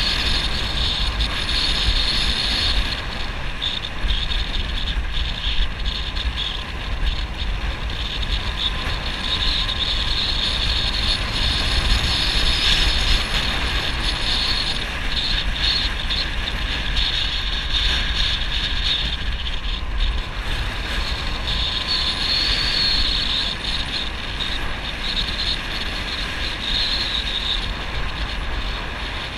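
Motorbike riding along at a steady speed: engine running under wind rumble on the microphone and a steady hiss.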